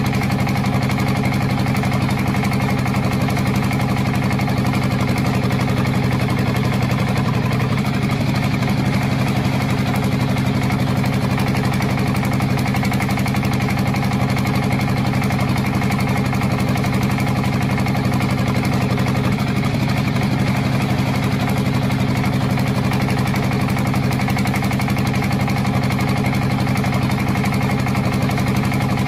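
A tractor engine idling steadily with an even, unchanging hum.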